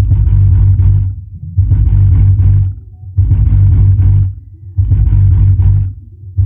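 8-inch active bass tube subwoofer, set to bass-only crossover mode, playing a heavy, deep bass pattern: bass notes about a second long repeating roughly every one and a half seconds, with short dips between them.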